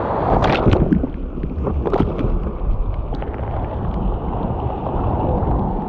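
Whitewater surf rushing and splashing along a paddleboard at deck level, with sharp splashes about half a second and two seconds in, and wind buffeting the microphone.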